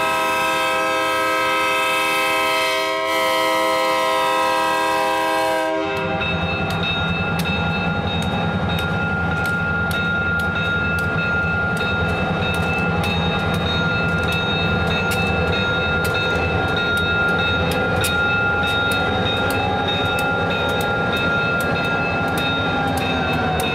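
Diesel locomotive's air horn sounding for a grade crossing, held for about six seconds with a short break about halfway. Then the locomotive's engine rumbles past close by while a bell rings steadily, about two to three strokes a second.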